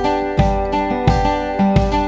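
Background music: acoustic guitar strumming a steady rhythm.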